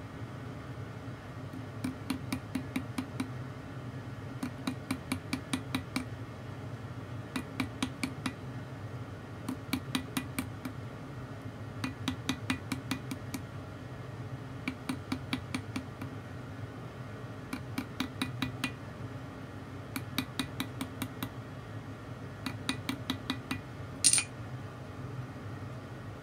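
Small hammer tapping lightly and rapidly on a sliced metal tube link against a steel anvil, in short runs of taps with brief pauses between, working around the edge to fold the flared sides over. A single louder metallic clank comes near the end.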